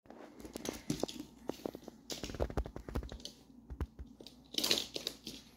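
Claws of a Shiba Inu puppy and a rabbit clicking and scrabbling on a hardwood floor as they move about: a run of quick sharp taps, with a louder scuffing burst about four and a half seconds in.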